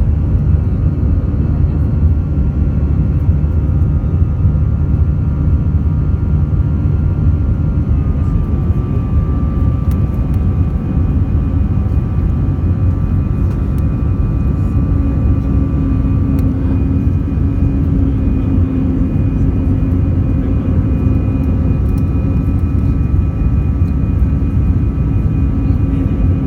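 Airbus A319 jet engines and rushing air heard from inside the passenger cabin during takeoff: a steady, loud low rumble with thin engine whine tones that change pitch about eight seconds in.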